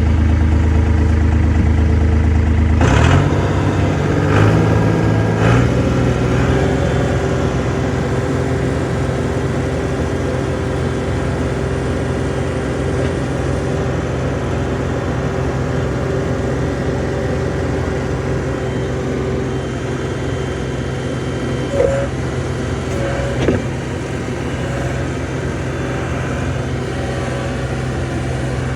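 John Deere 250 skid steer's diesel engine, idling and then throttled up about three seconds in, running steadily at higher revs after that. Clanks and rattles come in the few seconds after the throttle-up, and two short knocks come near the end.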